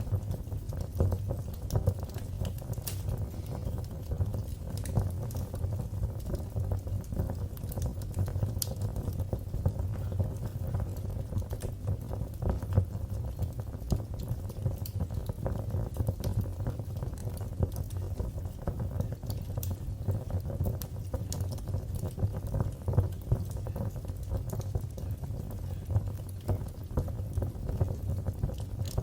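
Wood fire burning in a fireplace: a steady low rumble with dense crackling and occasional sharper pops.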